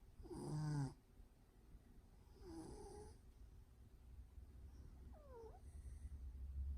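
Cat snoring: two long, buzzy snores about two seconds apart, the first the loudest, then a faint high falling whistle about five seconds in. A steady low hum lies underneath.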